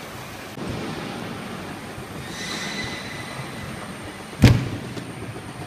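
Automatic jerry-can filling, capping and labeling line running, with a brief high squeal about two and a half seconds in and one sharp, loud clunk about four and a half seconds in.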